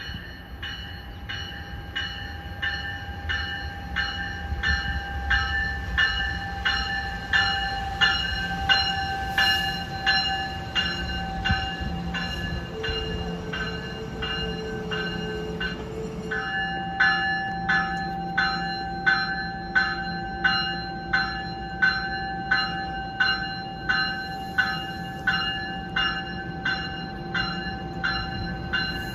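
An NJ Transit commuter train pulls into the station with its bell ringing steadily, a little under two strikes a second, over the train's low rumble. A short lower whine sounds about halfway through.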